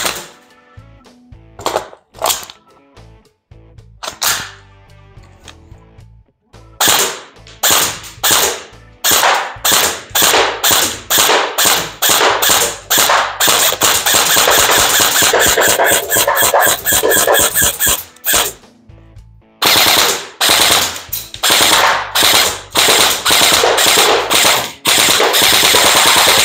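Bolt B4A1 electric-recoil airsoft rifle firing on full auto, with rapid popping. A few short, separate pops come first, then a long run of quick bursts, broken by a pause of about a second two-thirds of the way through.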